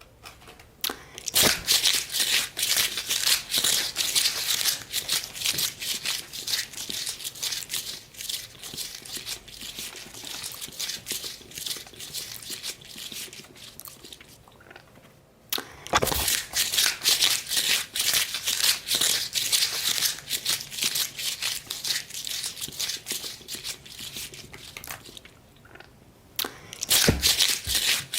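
Close-miked ASMR eating sounds: rapid crunching and crinkling chewing in long runs, broken by two short pauses, the second pause ending with a sharp crunch.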